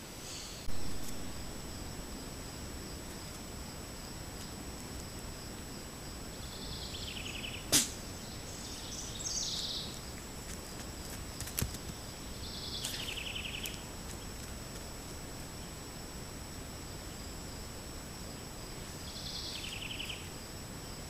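Trail camera audio: a steady hiss with a thin high whine, and a songbird's short descending trilled phrase repeating every few seconds. Two sharp clicks cut in, about eight and eleven and a half seconds in.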